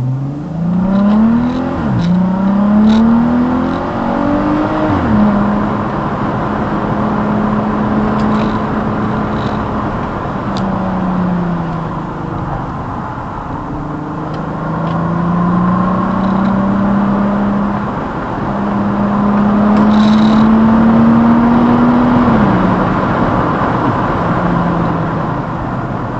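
VW Atlas engine and exhaust under way, leaking at rusted clamps on a resonator-delete pipe. The note climbs and drops sharply twice in the first few seconds, as with upshifts under acceleration, then settles to a steady cruise with small rises and falls. It climbs again and drops about 22 seconds in. Heard through a dash cam's microphone.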